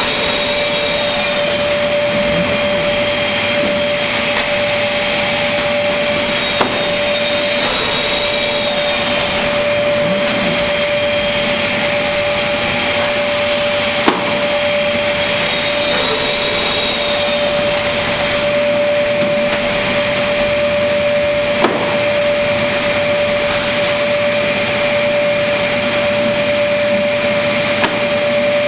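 Automatic MDF panel-cutting machine running: a steady machine noise with a constant whine, and a sharp click about every seven seconds.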